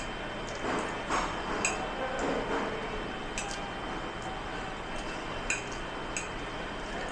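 Dishes and utensils clinking against each other: a few sharp clinks that ring briefly, over a steady noisy background.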